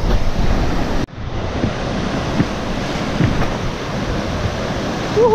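Ocean surf breaking and washing through shallow water, with wind buffeting the microphone; the sound drops out for an instant about a second in, then the surf carries on. Near the end, a short call rises and falls in pitch.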